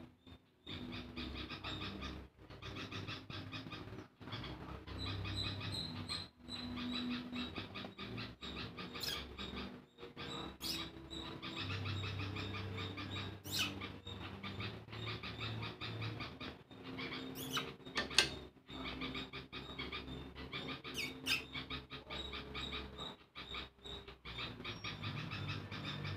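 Birds chirping in the background: a steady stream of quick, repeated short notes, with a few sharp clicks here and there.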